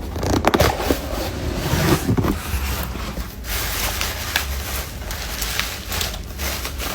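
Gift packaging rustling and crinkling as it is unwrapped by hand, with irregular crackles and small knocks.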